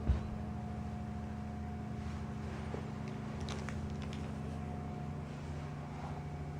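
A steady low hum of several constant tones, with a faint higher tone above it and a few faint ticks.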